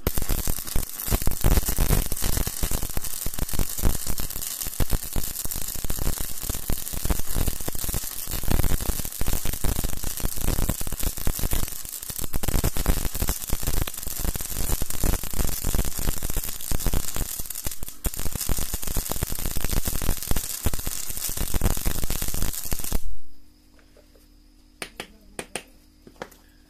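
Gasless flux-core MIG welding arc crackling and hissing steadily for about 23 seconds, then cutting off sharply, followed by a few faint clicks. The welder is an Awelco Mig One converted to DCEN output through an added bridge rectifier and smoothing capacitor, which gives a more stable, more uniform arc.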